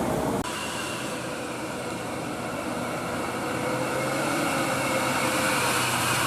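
A bus engine running with road noise, slowly growing louder as it approaches, after an abrupt edit cut about half a second in.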